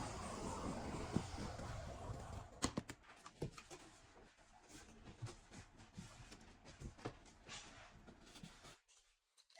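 Hands handling computer parts: a rustle of packaging or handling noise, then scattered light clicks and taps that stop near the end.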